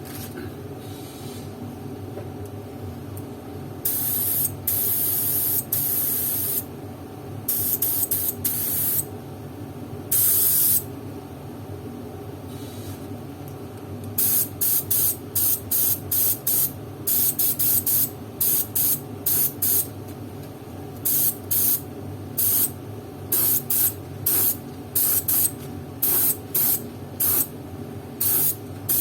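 HVLP spray gun with a 0.7 mm nozzle spraying leather paint in hissing bursts as the trigger is pulled: a few long sprays of one to two seconds, then from about halfway many short quick bursts, about two a second. A steady low hum runs underneath.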